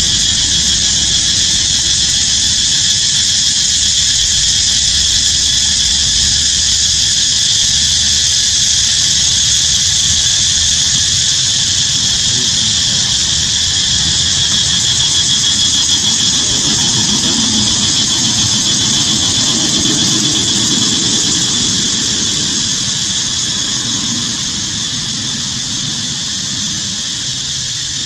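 Steady high-pitched drone of a forest insect chorus, such as cicadas, unbroken throughout and easing slightly in level near the end.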